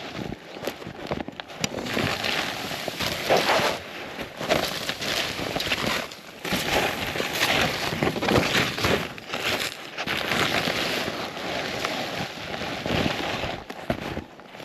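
Snowshoe steps crunching and packing through deep snow, in an uneven series of surges with brief pauses.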